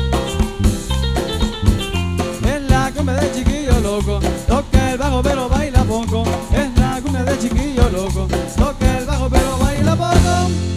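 Cumbia band playing: a bouncing bass line and drum kit, with a wavering lead melody coming in about two seconds in. Near the end the band breaks off onto one held bass note.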